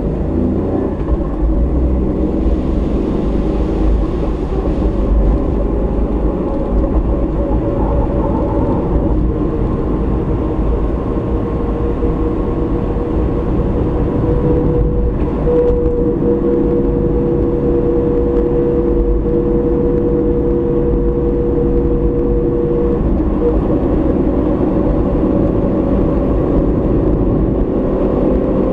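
A car driving along a road as picked up by its dashcam: a steady low rumble of engine and tyres, with a steady engine tone whose pitch shifts slightly a little past the middle and again later.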